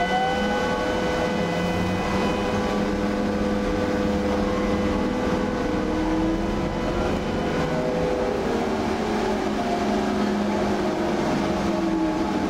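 Trolleybus moving, heard from inside its passenger cabin: a steady rumble under the whining tones of its electric drive. One whine rises in pitch about a second in, and another slowly rises and falls in the second half.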